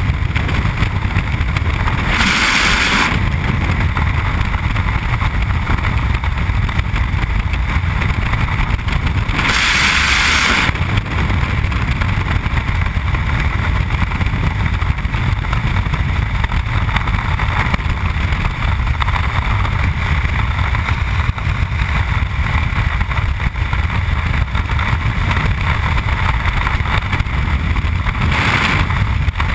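Freefall wind roaring over a body-worn camera's microphone, a loud steady rumble. It rises briefly into a louder hiss about two and a half seconds in, again around ten seconds, and near the end.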